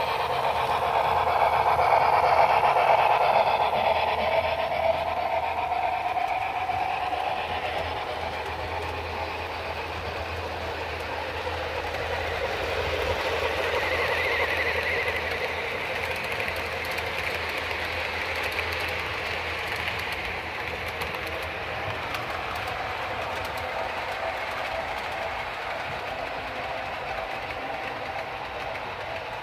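Model trains running on the layout: a steady whirring rumble of wheels on rail and small motors, loudest in the first few seconds as a model steam locomotive passes close by, then easing off.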